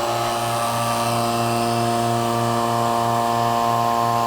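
Robinair two-stage HVAC vacuum pump running steadily, a motor hum with a regular low throb. It has just started evacuating a system from atmospheric pressure through half-inch hoses.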